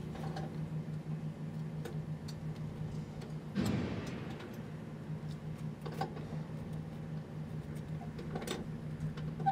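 Parked semi truck's diesel engine idling, a steady low pulsing hum with light ticking. A short, louder rush of noise cuts in about three and a half seconds in and fades within a second.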